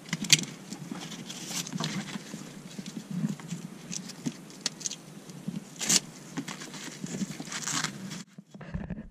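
Nylon fabric of a rooftop-tent boot bag rustling as it is strapped and buckled into place by hand, with scattered sharp clicks and a few short rasps from the buckles and straps.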